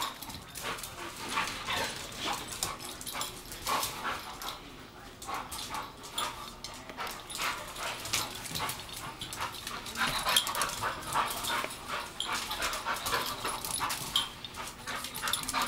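A pit bull making repeated short vocal sounds, excited while chasing a laser pointer dot, with many short sharp clicks and scuffs throughout.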